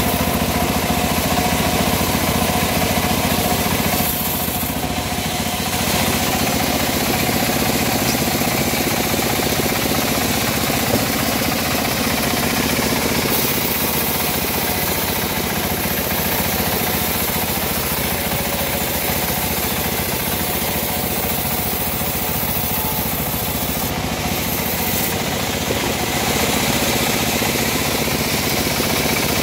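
Homemade band sawmill running steadily, its band blade cutting lengthwise through a teak log.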